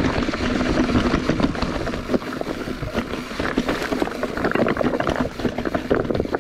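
Bicycle riding down a rough, rocky trail: tyres crunching over stones with a steady run of clicks and rattles from the bike, and wind buffeting the microphone.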